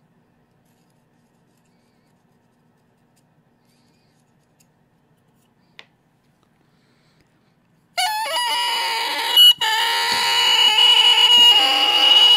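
After about eight seconds of near silence, an oboe reed is blown on its own: a loud, multi-pitched crow with a steady high whistle on top, cutting out briefly about a second and a half in before carrying on. The crow is wild, which the maker puts down to scraping the tip too thin.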